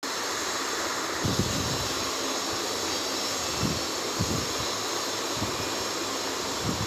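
Steady rushing noise, like moving air, with a few soft low thumps from paper being handled and pressed on a tabletop.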